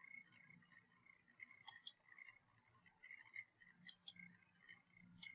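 Computer mouse button clicking three times, about two seconds apart, each a quick pair of clicks (press and release), over faint steady background noise. The clicks place the points of a polygonal lasso selection.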